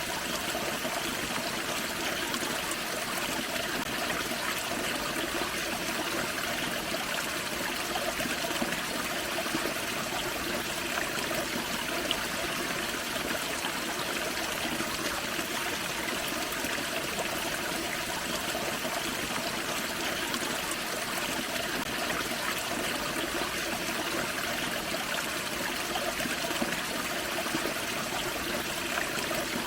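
Forest creek running over a small waterfall: steady splashing and trickling of water.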